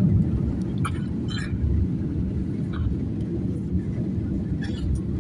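Airliner cabin noise in flight: a loud, steady low rumble of the jet engines and airflow heard from a window seat.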